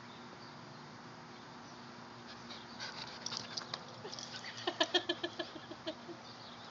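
Dog lunging and snapping at a bumblebee: a quick run of jaw clicks and short pitched huffs, starting about three seconds in and densest near the end.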